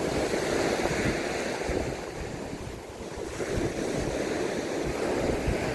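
Sea waves breaking and washing up a sandy beach, the surf easing a little about halfway and then swelling again with the next wave, while wind buffets the microphone.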